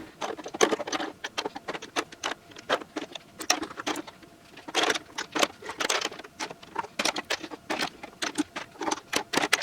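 Glass nail polish bottles clicking against one another and a surface as they are picked up and set down while being sorted: a quick, irregular run of light clicks with a few longer rattles in the middle.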